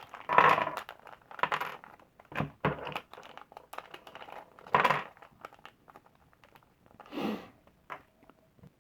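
Plastic packaging crinkling and rustling in short bursts as small bagged parts are opened and handled, with a few light clicks of hard plastic pieces.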